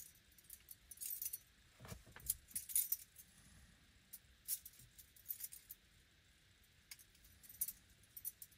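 Light metallic jingling and clinking in irregular bursts, like small metal pieces shaken together, with a dull knock about two seconds in.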